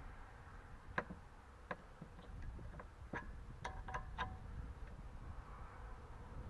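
Scattered light metallic clicks and taps from hand tools and metal parts being handled on an engine cylinder head, about nine in a few seconds, a few with a short ring.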